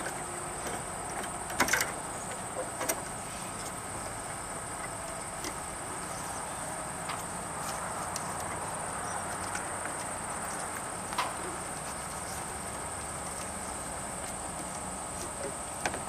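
A few sharp clicks and knocks of tie-down strap hardware handled at a snowmobile's rear bumper, the loudest about one and a half and three seconds in and again near eleven seconds. A steady high insect chirring carries on behind them.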